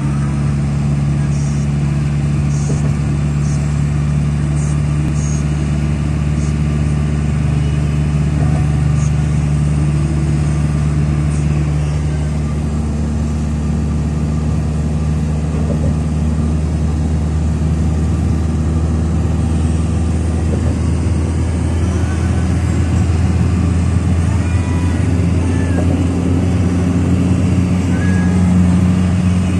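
Engine drone and road noise heard inside the cab of a Hyundai light truck cruising at highway speed: a steady low hum whose pitch shifts about two-thirds of the way through.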